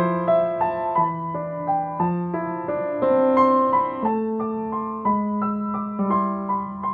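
Background piano music: an unhurried melody of single struck notes, a few a second, over held bass notes.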